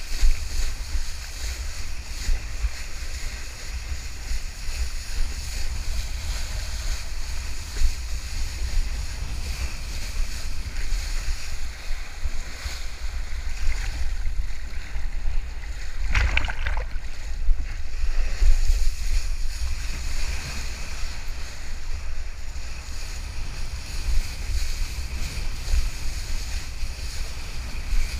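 A kiteboard planing across choppy water: hiss and rush of spray off the board, with wind buffeting the microphone in a steady low rumble. A brief louder rush comes about halfway through.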